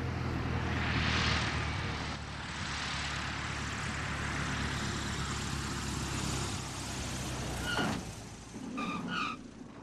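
A steady low engine drone with rushing air that swells about a second in and dies away about eight seconds in, followed by a few short high chirps.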